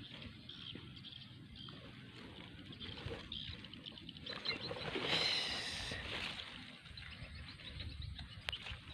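Faint outdoor ambience with scattered small handling noises and a brief, louder rush of noise about five seconds in.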